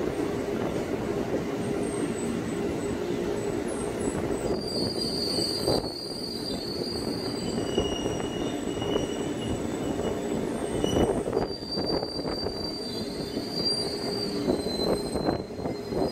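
Ex-JR East 205 series KRL electric commuter train moving along the station platform: a steady rumble of wheels on the track, with high-pitched wheel squeal coming and going, about a third of the way in and again over the last few seconds.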